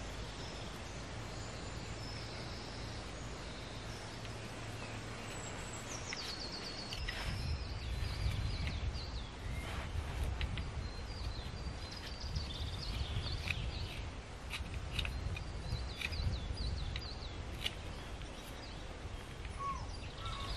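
Outdoor ambience: a low rumble of wind that turns gusty about seven seconds in, with small birds chirping again and again from about six seconds on.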